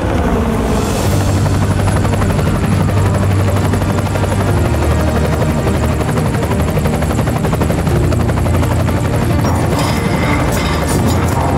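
Helicopter hovering: fast, even rotor chop over a steady low drone.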